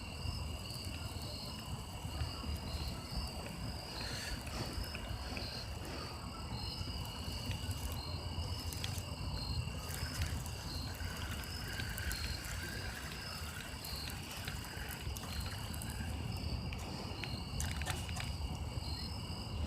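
Insects trilling steadily in two high, unbroken tones over a low outdoor rumble.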